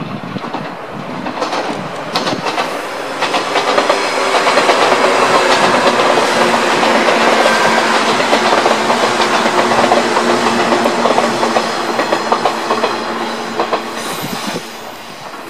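A 185 series electric train passing on single track, its wheels clicking rhythmically over the rail joints under a steady motor hum. It builds up over the first few seconds and fades away near the end.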